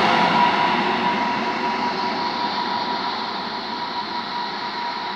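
Passenger train moving away and fading into the distance, its rolling noise dying down steadily, with a steady high whine over it.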